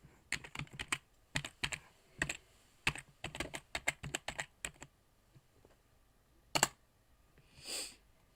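Computer keyboard being typed: a quick run of key clicks for about five seconds as a line of letters is entered, then one sharper single click and a brief soft hiss near the end.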